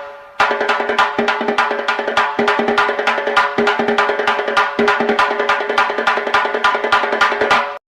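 Background music cue: a fast, even run of sharp percussive strikes over sustained pitched notes. It pauses briefly at the start, then cuts off abruptly near the end.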